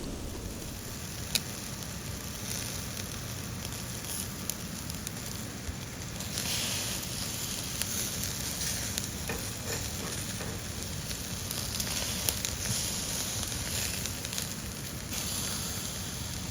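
Skewered chicken (yakitori) sizzling steadily as it grills, with scattered small pops and crackles.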